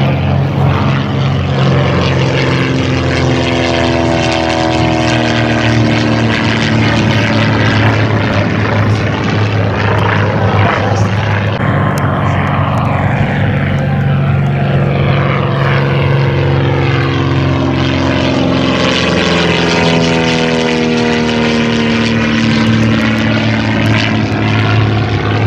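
Fairchild PT-19's Ranger inverted inline-six engine and propeller droning steadily as the plane makes low passes. Its tone sweeps downward as it goes by, twice.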